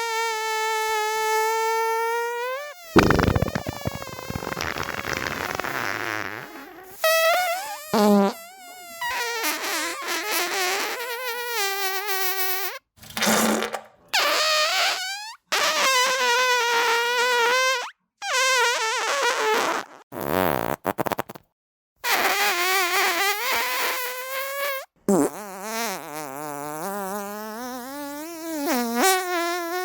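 A string of real human farts edited one after another. Most are long and pitched, with wavering pitch. About three seconds in there is a noisy, spluttering hiss, and short silences separate the farts.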